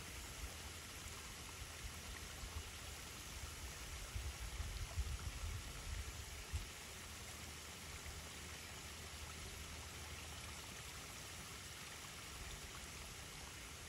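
Steady, soft hiss of running water at a garden pond, with a stretch of low rumbling in the middle.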